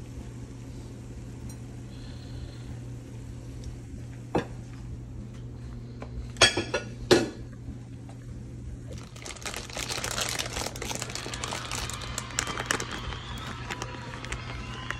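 A cast iron skillet clanks twice, about half a second apart, as it is handled. A few seconds later a plastic bag of shredded cheese crinkles steadily until the end, over a steady low hum.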